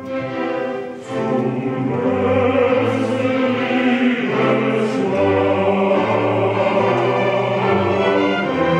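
Opera orchestra playing with a chorus singing sustained lines over it, dipping briefly about a second in before swelling back to full.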